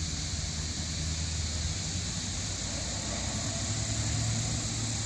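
Street traffic: car engines running, a steady low hum that swells slightly about three seconds in as a car passes, under a constant high hiss.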